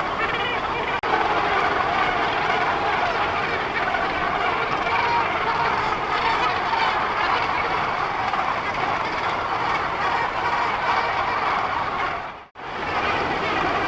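Crowded Cape gannet breeding colony calling, a continuous harsh chorus of many overlapping calls. It drops out briefly near the end.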